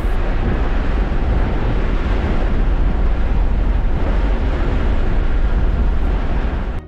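Steady in-cabin road and wind noise of a Tesla Model 3 driven on track, a dense rumble with no engine note, cutting off suddenly near the end.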